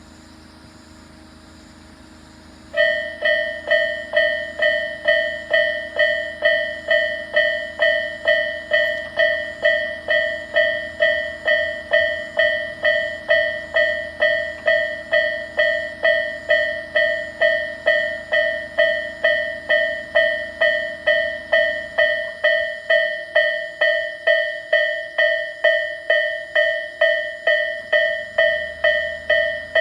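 Japanese railway level-crossing warning bell, Isesaki-type electronic tone, starting up a few seconds in and then dinging steadily about twice a second.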